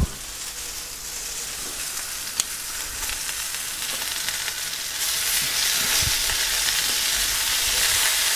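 Sliced peppers and onions sizzling in a griddle pan on full heat, the sizzle growing louder about five seconds in as tongs turn the vegetables. One sharp click about two and a half seconds in.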